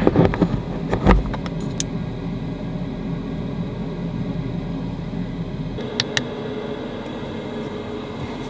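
A few knocks and clatters with a heavy thump about a second in, then a steady low hum, with two sharp clicks near six seconds.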